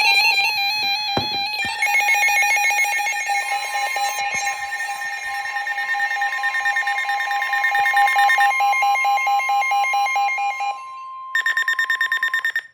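Emergency Alert System attention signal: a loud, steady electronic alarm tone pulsing rapidly, with a second, higher tone joining a few seconds in and the lower one dropping out near the end. It opens with a brief warbling tone and ends with a short burst of rapid beeping that cuts off suddenly.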